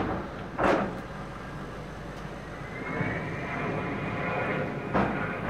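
Antonov An-178's twin turbofan engines heard in flight: a steady jet rumble with a high whine that rises in pitch about two and a half seconds in, then holds. Short, louder bursts of noise cut in near the start and about five seconds in.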